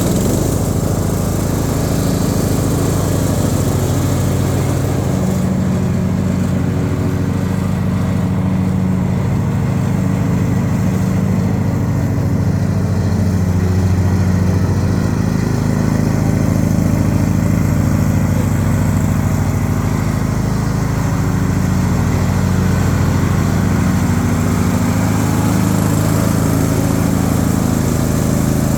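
Riding lawnmower engine running steadily under load.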